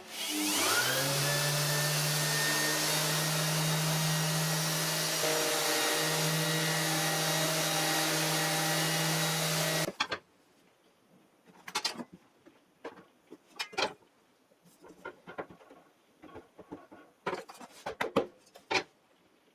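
An electric power tool's motor whines up to speed, runs steadily for about ten seconds and cuts off abruptly, followed by scattered knocks and clicks of work on wood.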